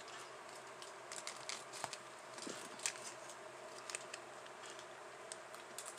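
Soft crinkling and scattered light clicks from a small foil packet of candy-kit powder being handled over a plastic tray.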